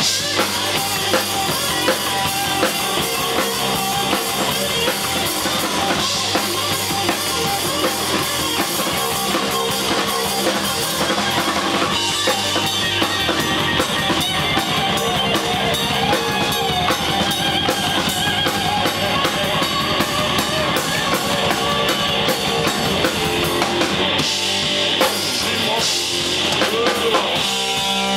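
Live blues-rock jam: a Stratocaster-style electric guitar played loud through a combo amplifier, with a drum kit keeping time behind it.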